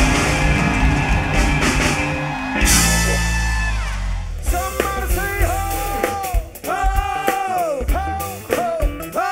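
Band music with drums and guitar. From about four seconds in it thins out to a solo singing voice holding long, bending notes over a sparse backing.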